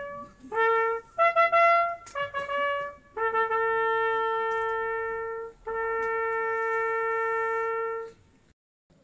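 Solo trumpet playing a slow memorial call: a few short notes, then two long held notes on the same low pitch.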